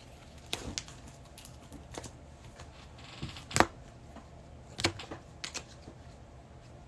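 Scattered light clicks and taps of trading cards being handled and set down on a table, about six sharp ticks at irregular intervals, the loudest a little past the middle.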